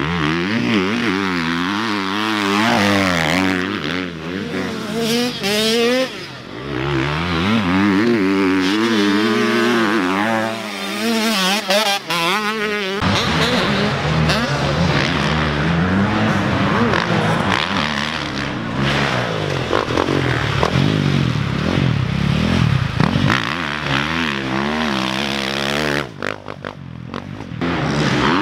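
Motocross dirt bike engine revving hard and dropping back over and over as it is ridden, the pitch swooping up and down through the gears, with a brief dip near the end.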